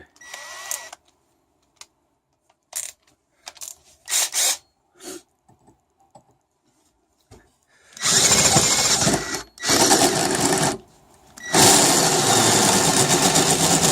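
Cordless drill running a hole saw into aluminum pipe in three bursts, the middle one the shortest, with the teeth grinding through the metal. A few light clicks and knocks of handling come first.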